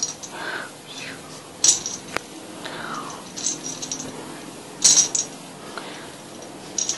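Light metallic jingling in several short bursts, the loudest about a second and a half in and again about five seconds in.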